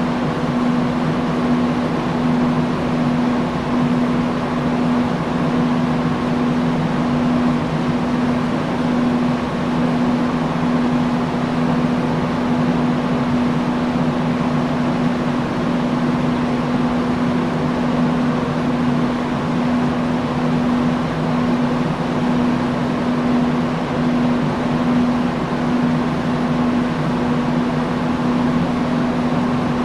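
Industrial fan running steadily: an even rush of moving air with a constant low hum from the motor and blades.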